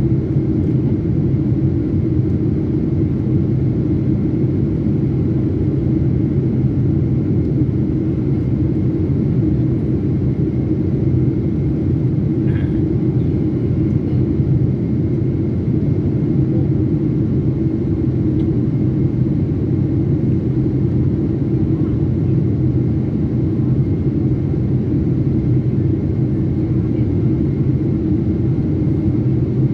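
Steady low rumble of a jet airliner in flight, heard from inside the cabin: engine and airflow noise with no change in pitch or loudness.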